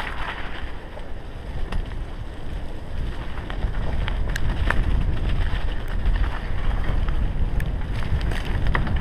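Wind rushing over the microphone of an action camera on a bicycle riding a dirt forest trail, with a steady low rumble and scattered sharp clicks and rattles from the bike.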